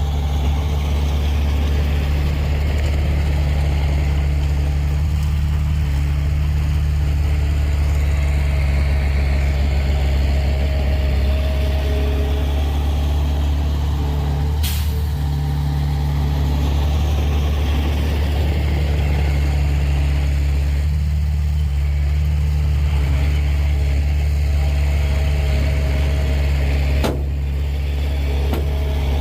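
A steady, low engine drone, with a sharp click about fifteen seconds in and another near the end.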